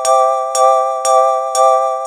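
Japanese railroad crossing alarm bell going 'kan kan': four evenly spaced ringing strikes, about two a second, each tone sustained into the next.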